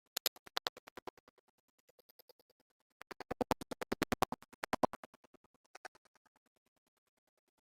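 Rapid, even mechanical clicking, about ten clicks a second, in two bursts, the second louder, with a few faint clicks after.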